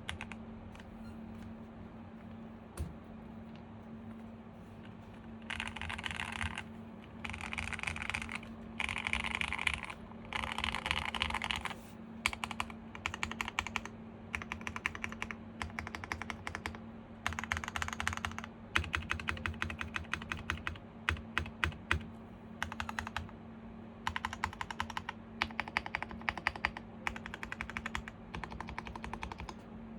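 Typing on a KBDfans Phase One 65 mechanical keyboard with a polycarbonate plate, SP-Star Polaris Gray switches and PBT keycaps: fast runs of keystrokes in bursts separated by short pauses, with lighter, sparser typing in the first few seconds.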